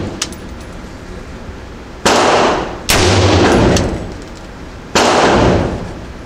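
Three rifle shots from a bipod-mounted AR-style rifle, about two, three and five seconds in. The second follows the first by under a second. Each shot echoes for most of a second in an indoor shooting range.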